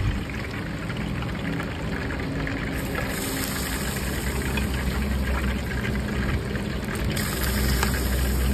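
Steady low hum of an idling engine, with a few faint clinks of a steel ladle against steel pots.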